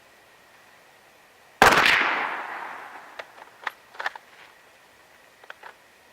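A single gunshot, a sharp crack with an echo that fades away over more than a second. It is followed by several light clicks.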